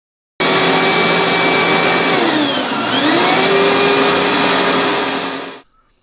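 Upright vacuum cleaner motor starting suddenly with a loud whine and running steadily. About two seconds in, its pitch sags for a moment and winds back up as its power switches over from the wall to an inverter running off a 12-volt battery. The sound cuts off near the end.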